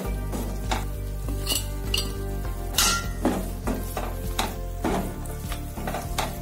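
A wooden spatula scraping and knocking against a nonstick pan as thick apple halwa is stirred, in a run of irregular strokes, with a light sizzle of ghee under it.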